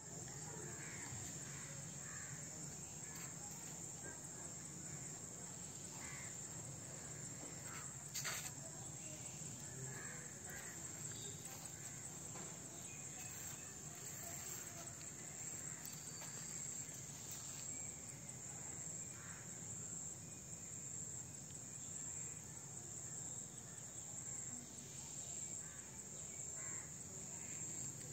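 Outdoor ambience: birds calling now and then over a steady high-pitched hum, with one brief louder noise about eight seconds in.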